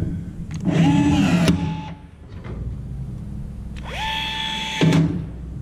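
Milwaukee M12 cordless rivet tool pulling blind rivets twice: each pull is an electric motor whine about a second long that rises in pitch and then holds. The first, about half a second in, ends in a sharp click; the second, near the end, cuts off abruptly.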